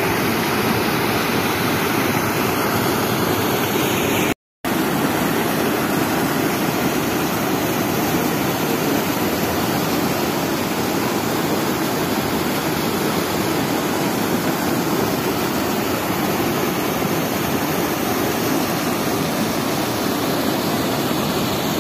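Flooded river water rushing over a weir and churning through the rapids below it: a loud, steady rush of water, broken by a short gap of silence about four seconds in.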